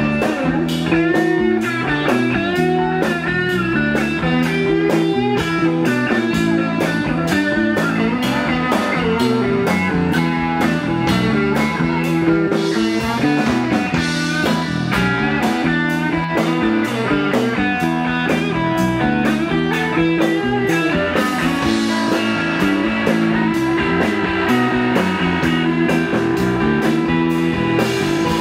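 Live rock band playing an instrumental stretch: electric lead guitar with bending notes over a steady bass and drum-kit groove.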